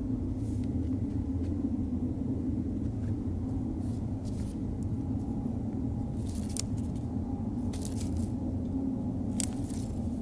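Car engine idling, a steady low rumble, with a few faint, brief taps over it.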